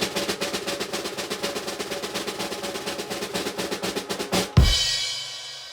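Snare drum roll that ends about four and a half seconds in with one loud hit with a cymbal crash, which then rings out and fades.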